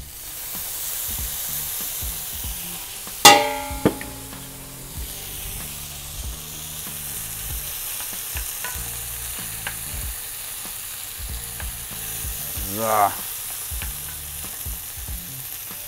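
Mushrooms, garlic and balsamic vinegar sizzling in a hot nonstick frying pan while a wooden spoon stirs them, with one loud ringing clank about three seconds in.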